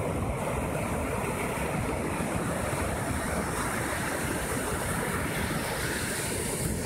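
Rough sea surf breaking offshore and washing up a sandy beach in a steady, continuous rush. Wind buffets the microphone.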